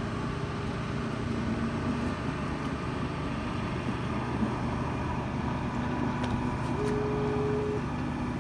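Steady outdoor background rumble with a faint, even engine-like hum underneath.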